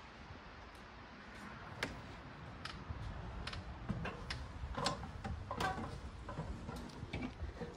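Scattered light clicks and knocks from a fifth-wheel RV's entry door being opened and footsteps going up its folding metal entry steps.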